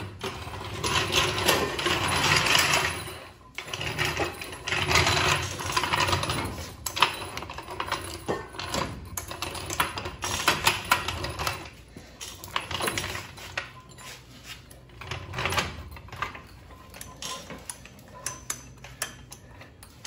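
Metal floor jack being rolled across a concrete floor and set under a lower ball joint: its wheels and frame rattle and clatter, with many sharp clicks and knocks.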